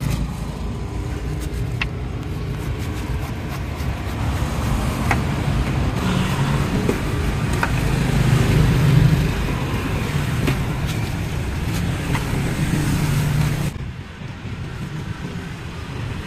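Road traffic going by close at hand: a low engine drone that swells to its loudest around nine seconds, then drops away sharply a few seconds before the end, with a few light clicks over it.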